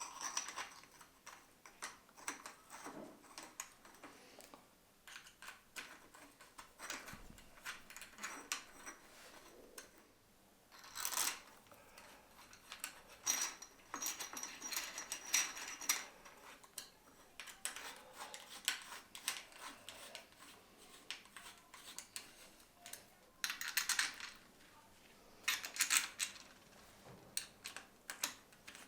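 Small clicks and metal clinks of tools and scooter parts being handled during electric scooter assembly, with a few louder rustling scrapes.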